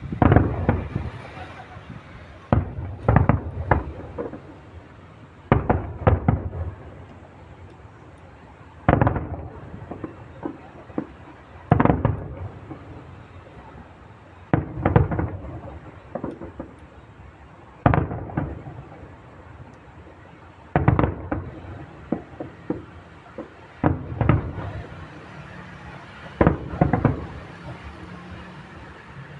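Aerial fireworks shells bursting: loud booms every three seconds or so, often two or three close together, each trailing off.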